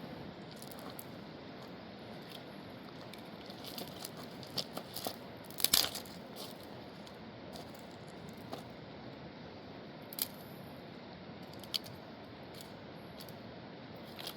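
Sharp clicks and snaps over a steady rushing noise, with a cluster of them about four to six seconds in, the loudest near six seconds, and single clicks near ten and twelve seconds.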